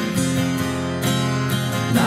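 Music: guitar chords strummed every half second to a second and left to ring, over sustained lower notes.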